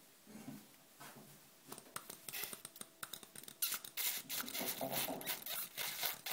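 Quick, dense scratching and rustling as a spray bottle's plastic straw is wiped dry with toilet paper. It is faint at first and grows busy and louder from about two seconds in.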